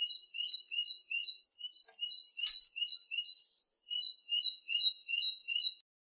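A tit singing a quick two-note phrase, a high note then a lower one, repeated over and over about three times a second. A single sharp click sounds about halfway through.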